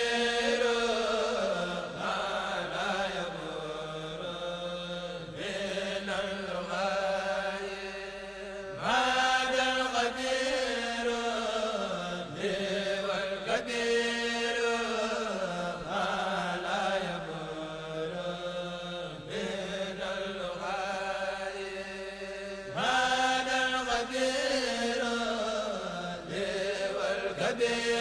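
Background vocal chant: a voice chanting in long melodic phrases that glide up and down, each lasting a few seconds.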